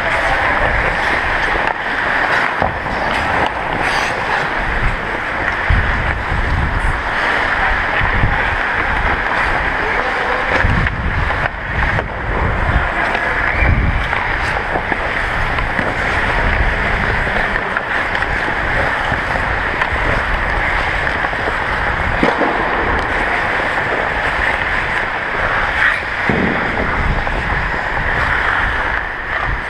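Ice skates gliding and scraping across a rink in a steady hiss, with wind buffeting the microphone in low, uneven gusts as the skater moves.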